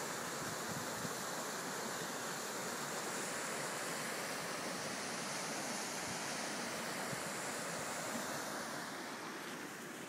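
River water rushing steadily through a rocky, partly frozen gorge, growing a little quieter near the end.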